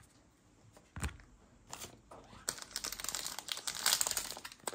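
Foil wrapper of a Panini Prizm trading card pack crinkling and tearing as it is opened: two light taps in the first two seconds, then dense crackling from about halfway on.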